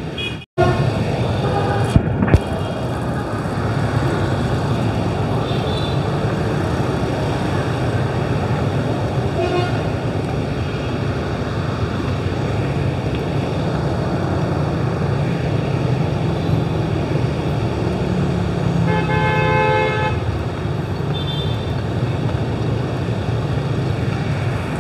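Steady road traffic noise, with a vehicle horn honking for about a second and a half around twenty seconds in and a few faint short toots earlier.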